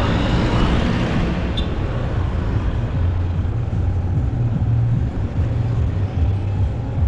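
Motorcycle engine running with a low rumble that rises and falls, under road and wind noise while riding through traffic.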